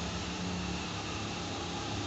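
Steady room noise: an even hiss with a low hum underneath, unchanging throughout.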